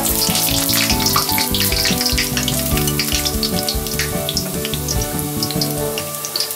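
Garlic cloves and almonds frying in hot oil in a pan, crackling and spitting steadily, with background music underneath.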